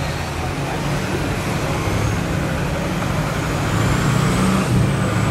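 H1 Hummer's engine running steadily under load as the truck crawls up a steep rock ledge.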